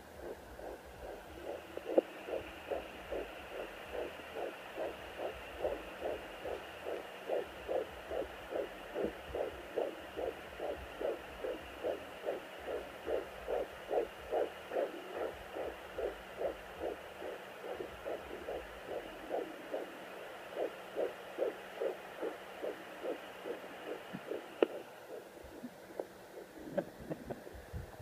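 Fetal heartbeat heard through a handheld home fetal Doppler at 13 weeks of pregnancy: a fast, even pulse of about two and a half beats a second over a steady hiss and faint hum. About 25 seconds in, a click is heard and the beat fades and breaks up.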